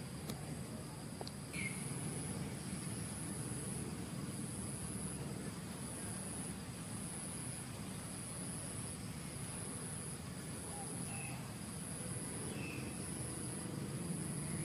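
Insect chirping a high, buzzing trill in evenly repeated pulses, about one and a half a second, starting about a second and a half in, over a steady low background noise.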